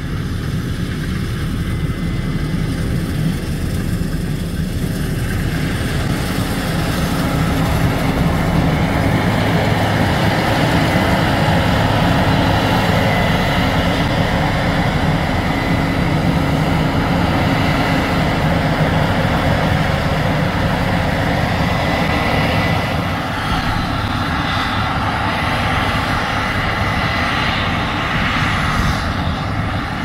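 Case IH Axial-Flow combine running under load while harvesting wheat: a steady engine and threshing-machinery hum with a rushing noise. It grows louder as the combine passes close around the middle and eases off toward the end.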